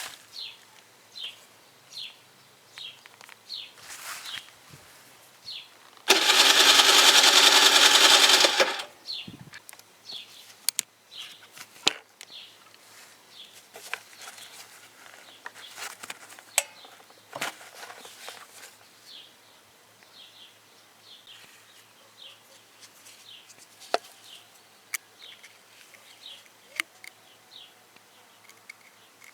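Gilera DNA 50 scooter's electric starter cranks the two-stroke engine once for about two and a half seconds, and the engine does not catch: a scooter that won't start after the winter. Short high chirps repeat under a second apart, with scattered sharp clicks.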